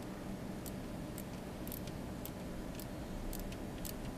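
Light, irregular metallic clicks about twice a second from a hand wrench working a bolt on a car's alternator mounting, over a steady low hum.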